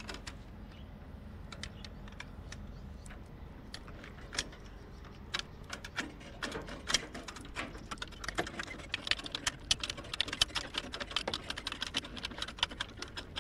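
Steel chain clinking and rattling against the lorry's steel side rack and its lever chain binder as it is handled by hand; scattered clinks at first, growing into a busy rattle from about halfway.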